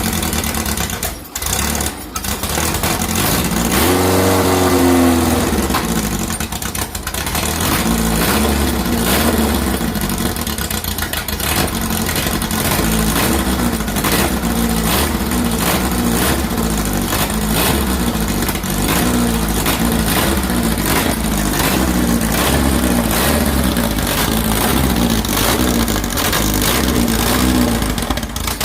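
A 2332cc air-cooled VW flat-four engine on EMPI HPMX 44 carburettors running rough on a cold start. It stumbles briefly a second or two in, revs up and drops back once about four seconds in, then settles into an uneven, pulsing idle. It is missing because the carbs, just cleaned and refitted, are not yet set.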